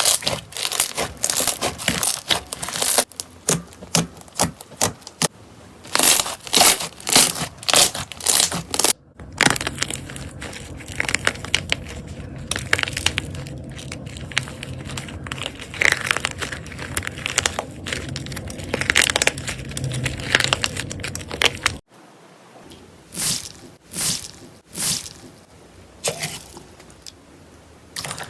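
Slime being squeezed, pressed and poked by hand, making crackling, crinkly sounds. First come many sharp separate crackles, then, after a cut about nine seconds in, a denser continuous crackling, and after another cut near the end, a few softer squishes.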